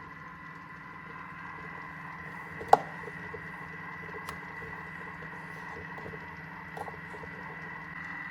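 Thermomix running on a low stirring speed while it heats the tea, a steady hum with a thin high tone over it. One sharp click comes about a third of the way in, and fainter ticks follow later.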